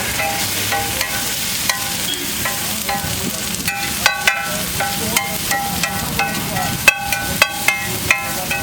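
Eggs sizzling on a hot griddle while a metal spatula scrapes and clinks against it. The ringing strikes are scattered at first and come more often in the second half.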